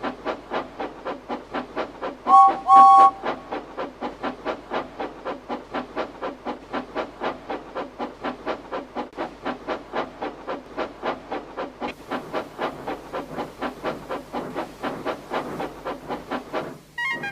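Steam locomotive chuffing at a fast, even rhythm, with two short blasts of a two-note steam whistle about two and a half seconds in.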